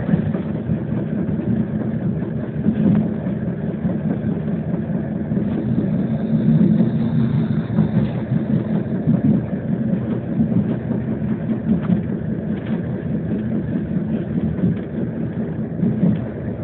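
Tram running along its route, heard from inside the passenger cabin: a steady rumble of the motors and the wheels on the rails.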